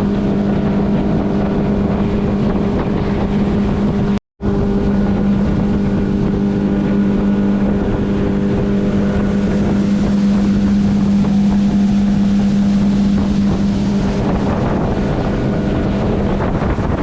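70 horsepower Yamaha outboard motor running steadily at cruising speed, a constant drone over rushing wind and water. The sound cuts out briefly about four seconds in.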